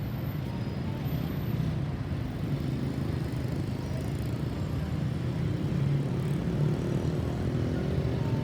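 Steady low rumble of road vehicles' engines and traffic, with no siren sounding.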